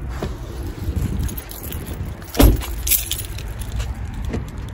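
Low, steady rumble of a car in motion heard inside the cabin, with a light jingling clatter and a single thump about halfway through.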